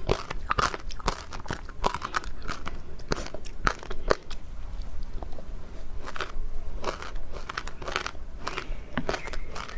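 Close-miked biting and chewing of frozen matcha ice: irregular, dense crunching with sharp crackles, easing briefly in the middle.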